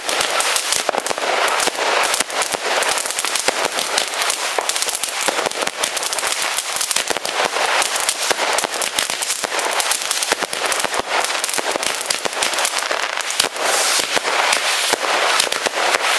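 Chained consumer firework batteries firing fanned crackling shots: a dense, steady crackle of countless small pops without a pause.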